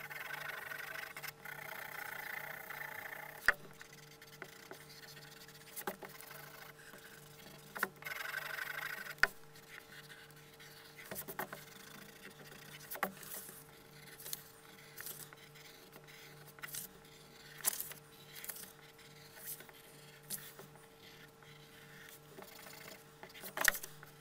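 Graphite pencil shading on paper: scratchy back-and-forth strokes, a steady run for the first few seconds and again about eight seconds in, then shorter scattered strokes and small taps.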